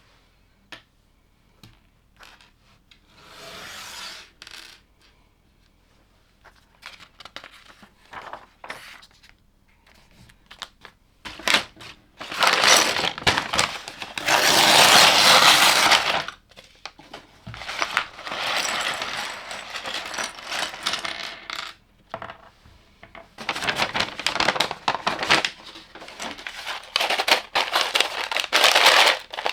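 Loose LEGO pieces clattering together: many small hard-plastic clicks and rattles in bursts, loudest about halfway through.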